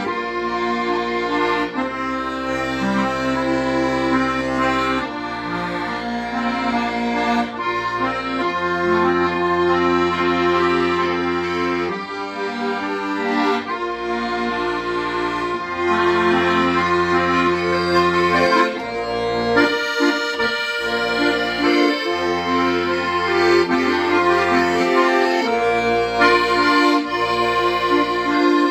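Accordion playing a slow popular melody, the right hand carrying the tune over sustained bass chords that change every second or two.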